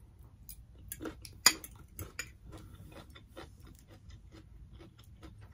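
Metal fork clicking and scraping against a bowl while eating: a series of light taps, the sharpest about a second and a half in. Fainter small clicks follow as a glass perfume bottle is handled.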